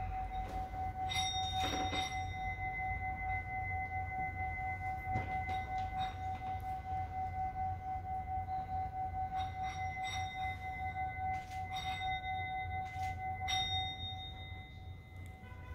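Tibetan singing bowl sounding one steady ringing tone with higher overtones, with a few light clicks over it. The tone dies away near the end.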